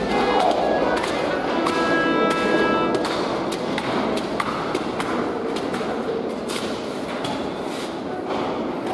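Background music with a steady beat of percussive knocks and thuds, and sustained notes in the first few seconds.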